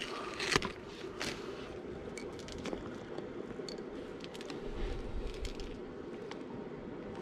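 Wet squelching and crunching of a mackerel head being handled and a large hook worked into it as bait, with scattered small sharp clicks.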